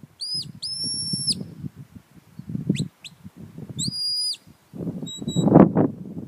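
A shepherd's whistle giving commands to a working sheepdog: a run of high, clean whistle blasts, some held flat for about half a second or more and a few short rising chirps, over low gusty noise.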